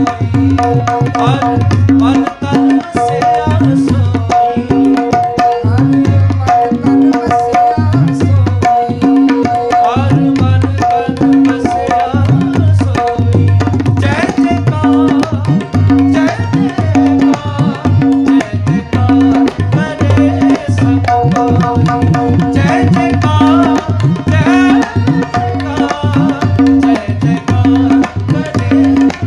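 Tabla played solo at a fast, dense pace, the bayan's bass strokes bending up and down in pitch as the palm presses the head. A short melodic accompaniment loops over and over beneath it, the lehra that keeps the cycle for a tabla solo.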